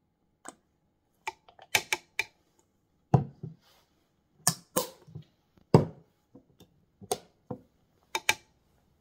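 A metal spoon tapping and scraping against a plastic chopper bowl and jar while peanut butter is spooned in, making an irregular series of sharp taps and knocks.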